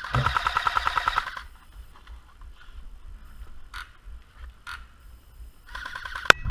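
A&K PKM airsoft electric light machine gun firing full-auto: a rapid, evenly paced burst of about a second and a half at the start, and a shorter burst near the end. Two single sharp snaps fall in the quieter stretch between the bursts.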